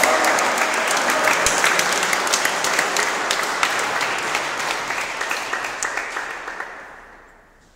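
Audience applauding a point won in a table tennis rally, a dense clatter of clapping that slowly dies away over about seven seconds.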